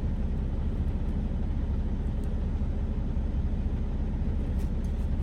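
Steady low rumble of an idling truck engine, heard from inside the cab, with a few faint light clicks near the end.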